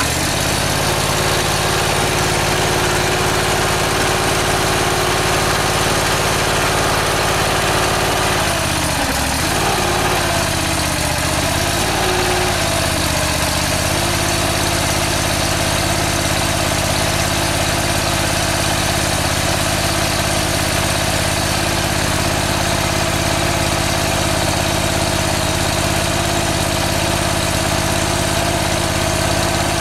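The air-cooled engine of an M-50 hydraulic stone splitter running steadily just after start-up. About nine seconds in, its pitch dips and wavers for several seconds as the hydraulics raise the splitting head, then it settles back into a steady run.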